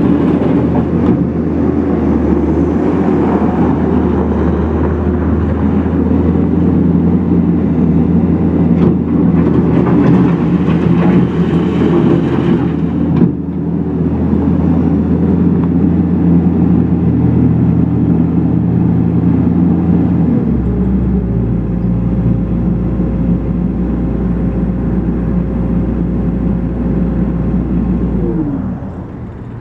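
New Holland L170 skid steer loader's diesel engine running steadily. About two-thirds of the way through it drops to a lower speed, and near the end it winds down and shuts off.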